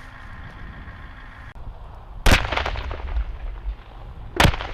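Two loud gunshots about two seconds apart, each followed by a long rolling echo, over a steady low rumble.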